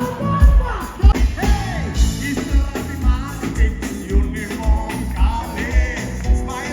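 Band music with drums, bass, guitar and keys: an upbeat rock-and-roll style groove with a strong kick drum about twice a second.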